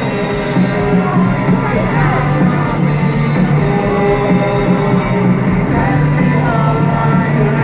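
Live rock band playing through a stadium PA system with singing over a steady bass line, recorded from within the crowd.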